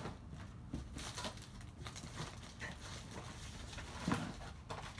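Paper and card rustling with light taps and clicks as craft pieces are sorted through by hand, with one louder knock about four seconds in.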